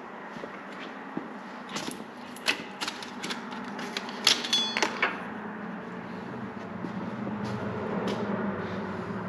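A run of sharp metal clicks and knocks from handling the rear axle and suspension parts under the car, including one ringing clink about four and a half seconds in. After that a low steady hum grows slightly louder.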